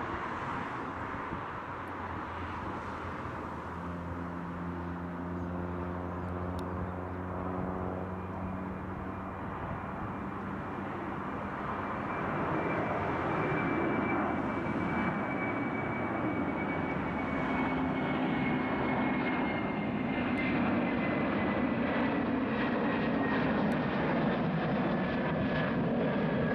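Airbus A330 twin-engine jetliner at takeoff thrust, lifting off and climbing out overhead. The engine noise grows louder about halfway through, with a high whine that slowly falls in pitch as the jet passes and moves away.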